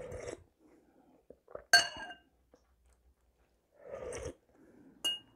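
Spoonfuls of soup slurped from a metal spoon, twice, about four seconds apart. The spoon clinks against the porcelain soup bowl with a short ringing note, sharply and loudest about two seconds in, and again more briefly near the end, with faint chewing sounds in between.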